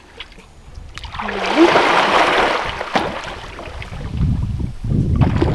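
A person plunging into lake water with a loud splash about a second in, followed by water sloshing and splashing as she swims off.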